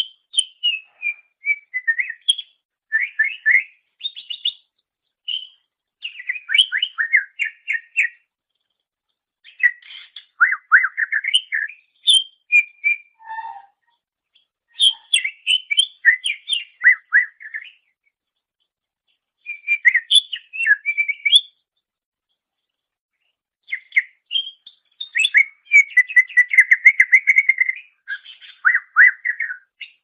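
Greater green leafbird (cucak ijo) singing in phrases of rapid, varied whistled and chattering notes, each phrase a few seconds long with short silent pauses between. A longer run of quick repeated notes comes near the end.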